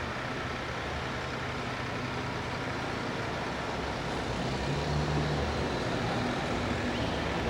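Pulling truck engine running low and steady, with a short lift in its pitch about five seconds in.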